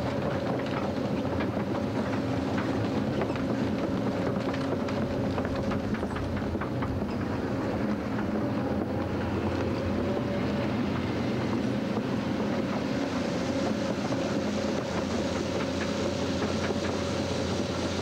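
Case CX210 tracked excavator travelling: its diesel engine runs steadily while the steel crawler tracks clank and clatter throughout.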